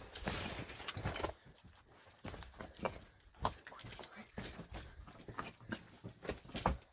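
Footsteps crunching and knocking over loose rubble and broken brick, with clothing and gear rustling, as people move quickly through a ruined building. The steps come as irregular sharp knocks, a few of them louder.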